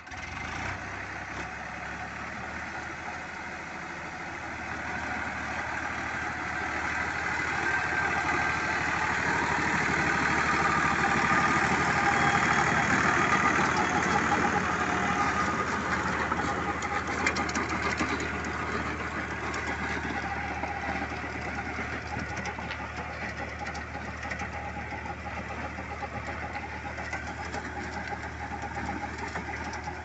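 Farm tractor's diesel engine running steadily under load as it pulls a disc furrowing implement through the soil. The sound swells for several seconds from about five seconds in, then eases back.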